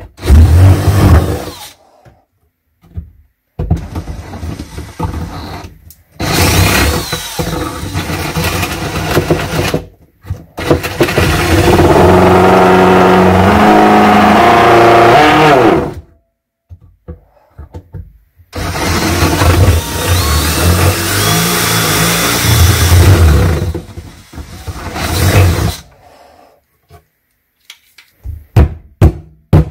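Cordless DeWalt power saw cutting through the cabinet shelf in about five bursts of a few seconds each, the motor winding down at the end of each run. A row of sharp knocks comes in near the end.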